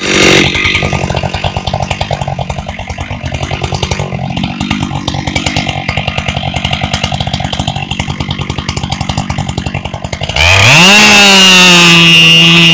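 Husqvarna 592 XP two-stroke chainsaw idling with a fast, even putter. About ten seconds in it is revved sharply to full throttle and held at a high, steady scream. Near the end the pitch sags a little as the chain bites into the trunk.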